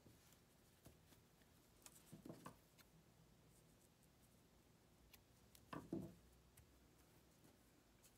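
Near silence with faint tabletop handling of scissors and yarn: two short soft rustle-and-click moments, about two seconds in and about six seconds in, the second slightly louder.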